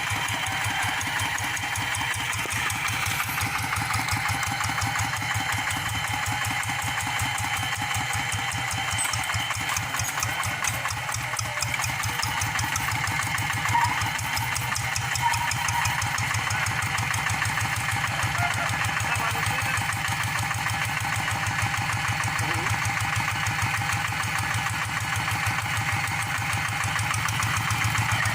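Tractor engine running steadily at a constant speed, with a rapid, even firing beat.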